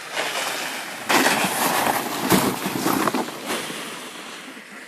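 A canoe used as a sled scraping and hissing fast over snow, growing loud about a second in, with a heavy thump midway as it crashes and the riders spill out, then dying away.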